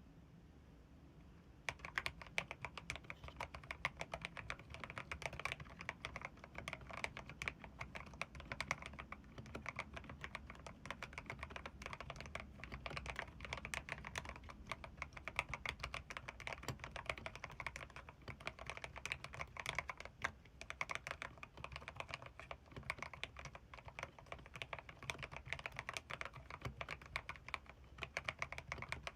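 Fast, continuous typing on a Ziyoulang K68 mechanical keyboard with red linear switches, starting about two seconds in after a quiet moment.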